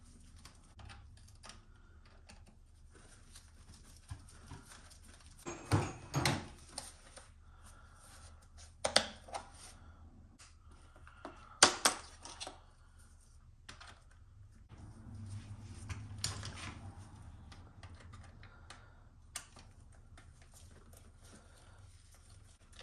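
Hand tools and small hard parts handled on a workbench: scattered light clicks and taps, with several louder clacks and a longer, softer noise about two-thirds of the way through.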